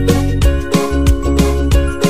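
Background music with a steady beat, about three beats a second, over held notes.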